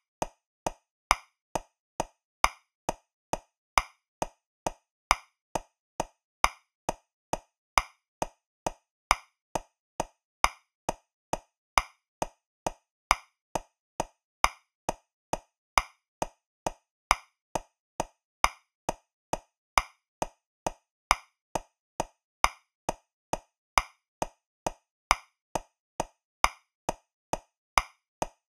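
Metronome clicking at 135 beats per minute in 3/4 time, a little over two clicks a second, with a louder accented click on the first beat of every group of three.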